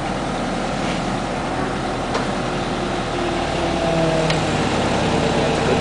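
Caterpillar 312 excavator's diesel engine running steadily. It grows a little louder about three seconds in, with some extra steady tones.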